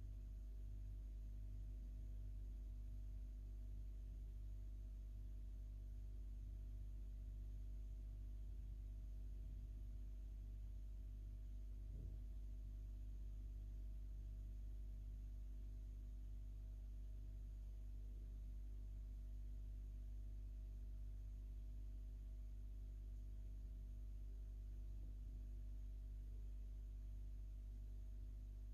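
Quiet room tone: a steady low hum with a few faint steady tones, and one faint tick about twelve seconds in.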